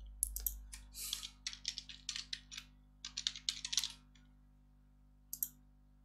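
Typing on a computer keyboard: a quick run of keystrokes lasting about four seconds, then a single click a little after five seconds in.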